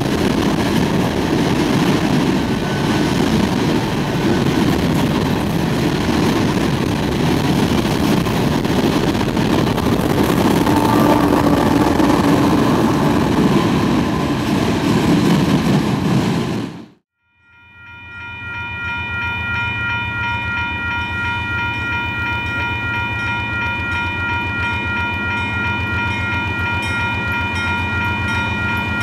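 An empty coal train's steel hopper cars roll past at speed with a steady rumble and rattle of wheels on rail, and a locomotive goes by with them. After a sudden cut about 17 seconds in, an approaching Union Pacific GE AC4400CW locomotive sounds its multi-chime air horn in one long, unbroken blast over the low rumble of its diesel engine.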